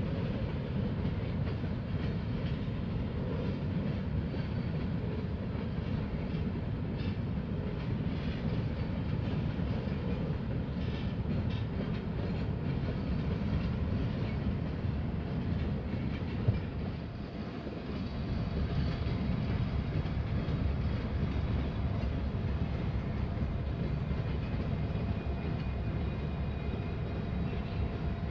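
Freight cars rolling slowly on the rails with a steady low wheel rumble, with one sharp clank about halfway through. The cars are being shoved in reverse by a Union Pacific GP60 locomotive.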